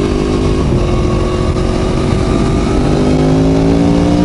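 Aprilia Tuono V4 1100 Factory's V4 engine through an Arrow exhaust, accelerating hard under the rider. It shifts up about half a second in, then the revs climb steadily.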